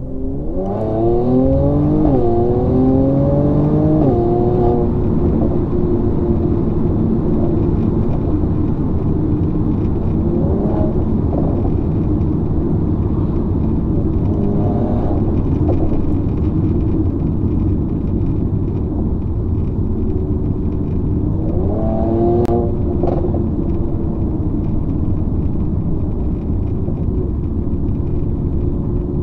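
Mercedes-AMG C43's twin-turbo V6 heard from inside the cabin, accelerating hard through one upshift in the first few seconds, then cruising with a steady drone of engine and tyres on the wet road. About 21 seconds in it pulls hard again, rising in pitch for a couple of seconds, with a single sharp click in the middle.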